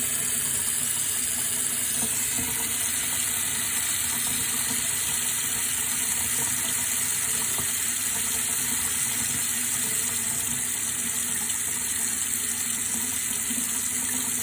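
Water running in a steady, even flow, unchanging throughout.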